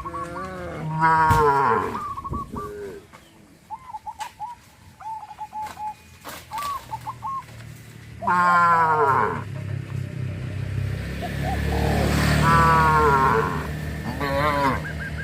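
Cattle mooing, several long, falling calls from different cows: one near the start, another about eight seconds in, and more in the last few seconds, with a few short higher calls between. A steady low drone runs under the second half.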